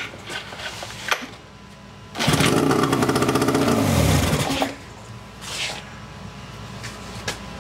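1980s Suzuki DT-25 two-stroke outboard, choked and primed with starting fluid, pops into life a couple of seconds in and runs loudly for about two seconds, then slows and dies. It is firing on the starting fluid alone.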